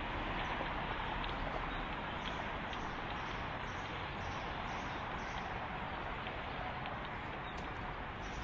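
Steady outdoor street background noise, with faint rhythmic steps on the pavement, about two to three a second, from about two seconds in to about five seconds in.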